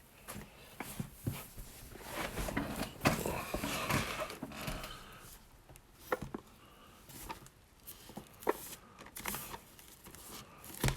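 Hands handling the packaging of a Pokémon TCG Elite Trainer Box: rustling and crinkling with scattered sharp clicks and taps, busiest about two to five seconds in.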